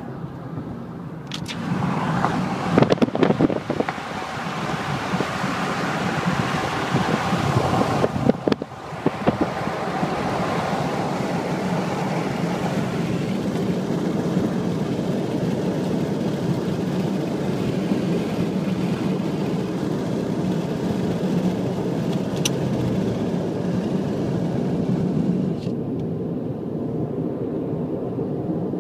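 Steady road noise of a car driving on a highway, tyre and engine hum heard from inside the cabin. In the first ten seconds the noise swells unevenly, with a few short knocks, then it settles to an even drone.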